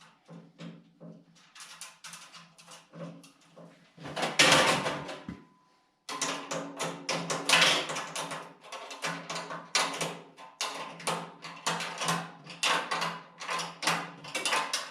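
Hand wrench working bolts out of a steel tool cart: a run of short metallic clinks, about two a second, with a louder clatter about four seconds in.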